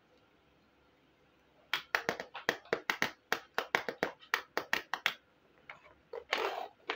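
Hard plastic toy pieces clicking and tapping quickly, about five or six sharp clicks a second for some three seconds, then a brief scraping rustle near the end.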